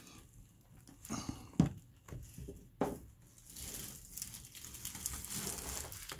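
A plastic spoon stirring and scraping a foamy slime mix of shaving cream, glue and paint in a plastic tub: soft squelching and scraping, with a few sharper knocks of the spoon against the tub in the first three seconds.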